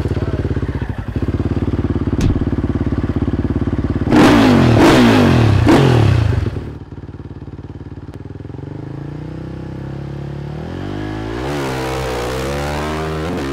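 KTM rally motorcycle's single-cylinder engine idling steadily, then revved hard for about two seconds around four seconds in before it drops back. Toward the end a rising, wavering sound slowly builds.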